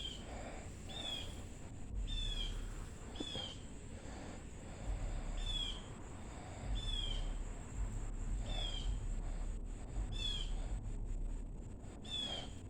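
A bird calling over and over, a short high chirp that falls in pitch, repeated about once a second.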